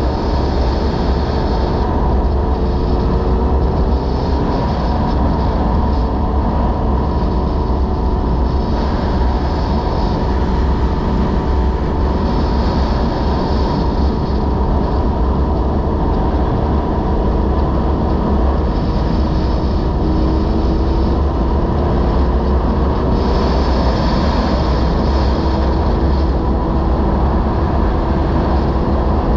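Honda VFR800FI's V4 engine cruising at road speed, under heavy wind rush on the onboard microphone. Its pitch rises gently a few times with small throttle changes.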